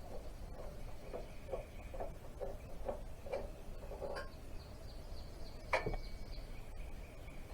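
Wrench work on engine bolts: a run of short strokes about twice a second, then a single sharp metallic clink that rings on briefly.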